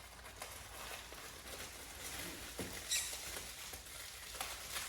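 Scratchy rustling and crinkling of a plastic blind bag as it is pulled and torn open, with one sharp snap about three seconds in.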